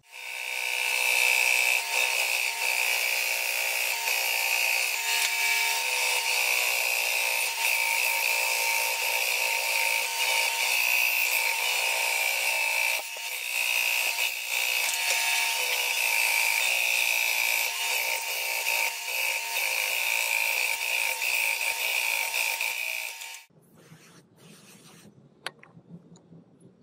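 Band saw running and cutting through a thick wooden block, a steady high whine with the rasp of the blade in the wood. It cuts off suddenly about 23 seconds in, leaving only a few faint clicks.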